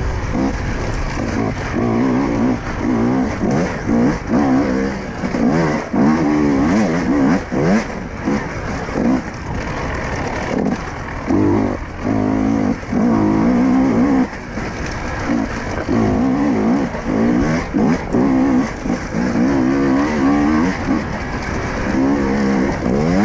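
Husqvarna enduro motorcycle engine being ridden hard. Its pitch rises and drops back again and again as the throttle opens and closes.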